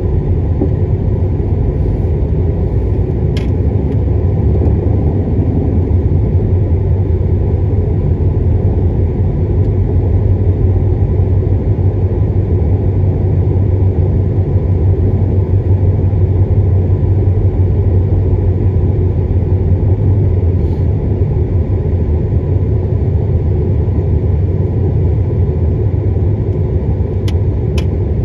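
Steady low rumble of a car in motion, heard from inside the cabin: engine and road noise. There is a faint click a few seconds in and two near the end.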